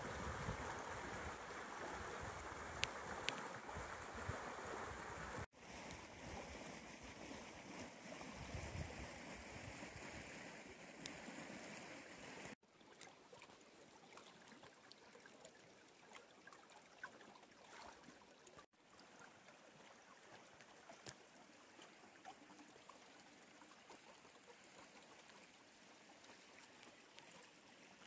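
A half-frozen creek's water running through open channels between shelves of ice and snow, a steady rush. It is louder in the first dozen seconds, drops off abruptly a few times and stays fainter near the end.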